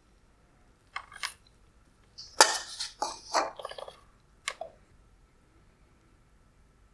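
Hard headlight parts being handled: a few clinks and knocks about a second in, a busier run of clatter between two and a half and three and a half seconds, and one more knock near four and a half seconds.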